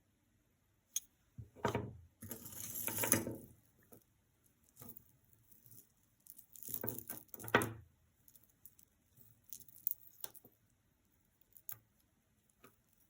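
Costume jewelry being handled: light clicks and clinks of metal pieces and chains, with two longer rustles about two and seven seconds in.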